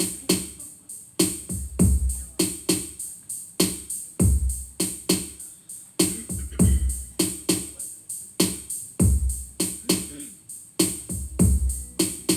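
Instrumental opening of a song: a steady drum beat of deep kick thumps and crisp hi-hat ticks, with no singing yet.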